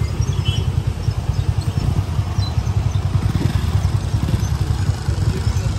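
Motorcycle engine running with a steady, low pulsing rumble.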